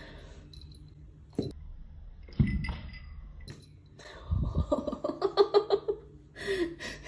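A cat playing with a dangled string against a wall and a sisal scratching post, making soft knocks and low thumps; the loudest thump comes about two and a half seconds in. A person's voice is heard briefly after about four and a half seconds.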